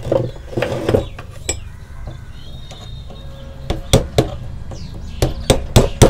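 Hammer tapping a punch to seat a table fan's stator coil in its motor housing: three sharp taps about halfway through, then a quicker run of taps near the end.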